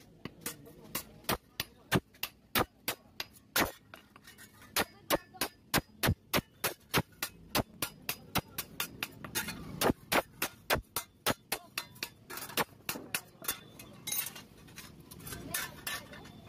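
Hand hammer striking a steel spade blade on an anvil, sharp metallic blows at a steady pace of about two a second, turning into lighter, quicker taps near the end, as the blacksmith shapes the spade blade.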